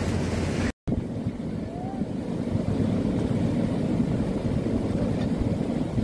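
Floodwater rushing over a weir, a steady low rushing noise with wind buffeting the microphone. The sound cuts out for an instant about a second in.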